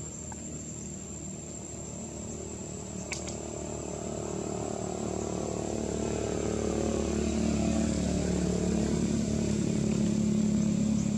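A motor vehicle's engine drawing near, getting steadily louder over the second half, over a steady high-pitched insect drone.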